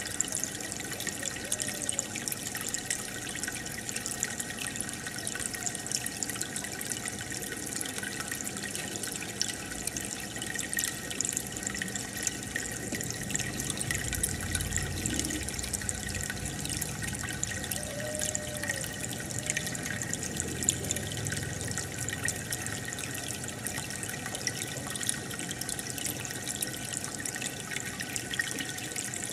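Aquarium filter and air bubbles: a steady trickling and bubbling of water, full of small popping drips.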